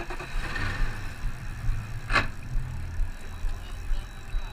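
Twin Yamaha outboard motors idling with a low, uneven rumble, mixed with wind buffeting the microphone. A single sharp click comes about two seconds in.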